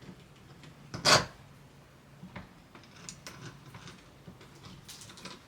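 Metal door handle hardware being fitted and screwed onto a door: one sharp clack about a second in, then faint scraping and light ticks.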